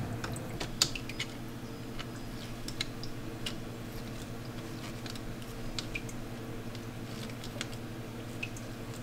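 Scattered light clicks and taps of aquarium filter parts and fittings being handled, over a steady low hum.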